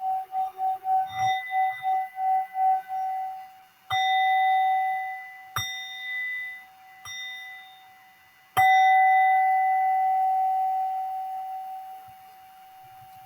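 Tibetan singing bowl sounding a single steady tone that pulses about three times a second. It is then struck four times; each strike rings out, and the last rings longest and slowly fades.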